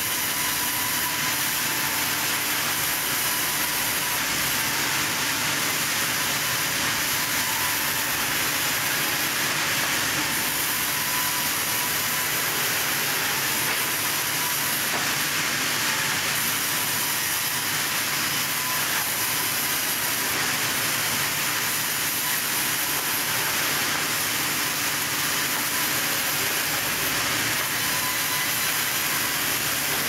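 Industrial vertical band saw running steadily as it resaws a log into slabs: a constant, even rushing noise with a faint steady hum underneath, with no pauses or knocks.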